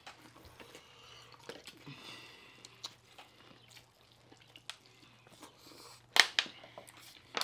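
Close-up chewing and biting of corn on the cob, with many small wet mouth clicks and smacks. About six seconds in comes a sharp, much louder burst, followed by a smaller one.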